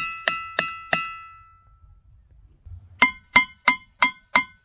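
A small hammer striking ringing-rock diabase boulders, each blow giving a clear bell-like ring. A quick run of four strikes rings on for about a second, then after a pause a second run of five quick strikes on another boulder rings at a different pitch.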